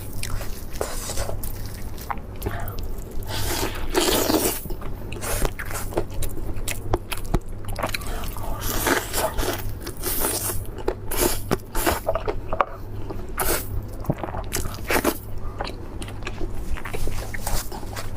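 A person biting and chewing food, with irregular crunching throughout.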